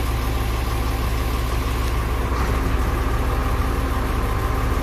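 Heavy diesel engine running steadily: a deep, even drone with a faint higher hum over it, no change in speed.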